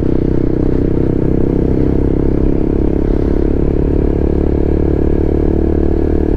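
Motorcycle engine running at steady cruising revs while riding at about 50 to 60 km/h, with a dense low rumble.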